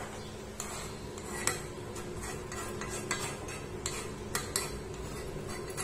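Metal spoon scraping and clinking against a pan while milk is stirred as it reduces for peda, with irregular scrapes and taps starting about half a second in.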